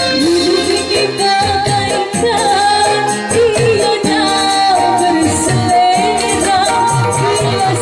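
A woman singing a bending melody into a microphone over a live band, amplified: a Technics KN3000 electronic keyboard and a hand-played kendang drum whose low strokes fall in pitch, with a fast ticking beat on top.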